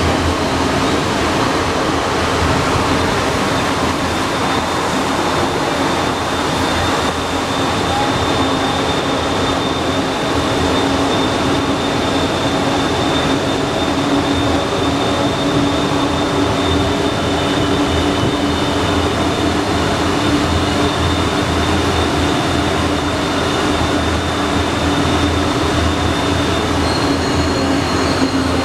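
Alstom NS-93 rubber-tyred metro train running, a steady loud rumble with whining tones held throughout. A higher whine comes in near the end.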